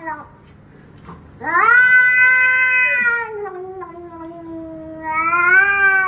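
Domestic cat yowling. A long drawn-out yowl starts about a second and a half in and trails off lower in pitch, then a second rising and falling yowl comes near the end.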